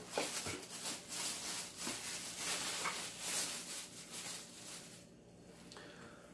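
Rustling and rubbing of a person reaching down beside a fabric couch and rummaging for a small dropped vinyl figure, with a few light knocks; it dies away about five seconds in.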